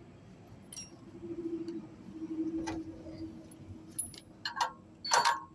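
Light metallic clinks and rattles of metal parts being handled, a few scattered at first and a louder cluster near the end, over a faint steady hum in the middle.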